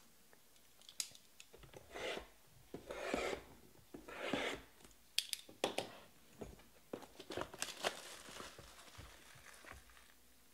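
Cardboard and wrapper packaging being handled and torn, with rubbing and tearing in three short bursts, followed by a run of sharp clicks and taps.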